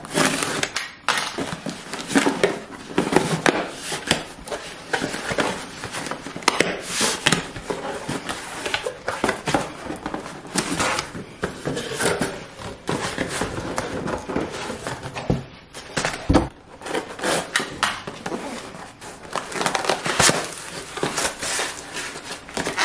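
Packaging being handled: tape on a cardboard shipping box cut along the seam, the cardboard flaps pulled open, and a plastic-wrapped box lifted out, with steady scraping, rustling and crinkling of cardboard and plastic. There is a single low thump about sixteen seconds in.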